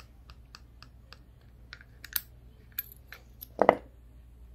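Small clicks and taps of metal and plastic parts as the throttle lever is worked off the shaft of an aluminium individual throttle body by hand, with one louder knock about three and a half seconds in.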